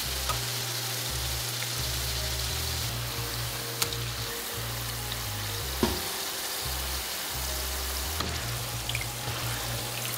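Churro dough deep-frying in hot oil: a steady sizzle and bubbling, with a few sharp clicks as the pieces are turned with tongs.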